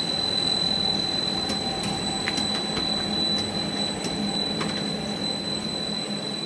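PP packing-strap extrusion line running: a steady machine drone with a low hum and a thin, high, constant whine, and a few faint ticks.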